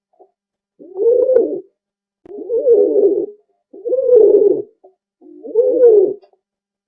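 Pigeon cooing: four low, rolling coos, each just under a second long and about a second and a half apart.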